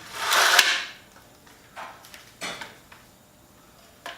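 A Ryobi 18V caulk gun being handled: a loud scraping rustle in the first second, then a few short clicks and knocks.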